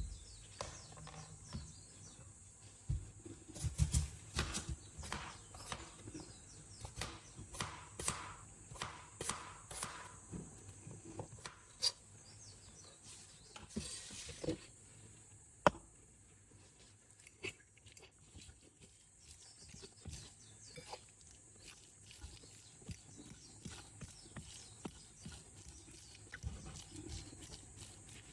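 Irregular taps, clicks and knocks of kitchen food preparation, from utensils and cookware being handled. They come thick and fast for the first half and grow sparse after that.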